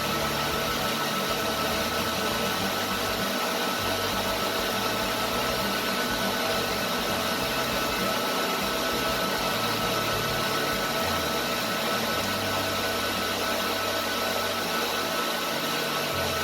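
Cooling fans for the racks of radio and TV transmitter equipment running, a steady loud rushing noise with several steady whining tones over a low rumble.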